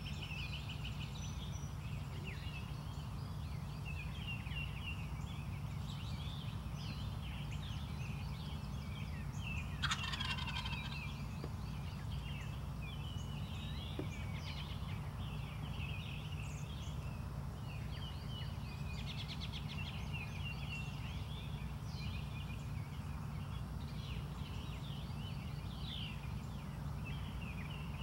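Wild turkey tom gobbling once, about ten seconds in: a loud, falling, rattling call lasting about a second. Small birds chirp throughout over a steady low hum.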